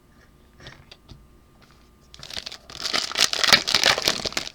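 Plastic trading-card pack wrapper crinkling as it is handled, with a few faint ticks first and then a dense run of crackling about halfway through.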